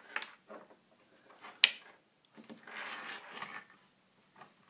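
Alligator-clip test leads and wires handled on a wooden workbench: a few light clicks, one sharp click about a second and a half in, then about a second of rubbing.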